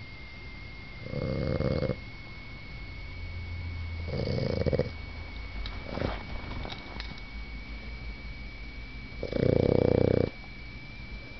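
Boston Terrier snoring in its sleep: three loud snores spaced a few seconds apart, the last the loudest, with quieter breathing between them.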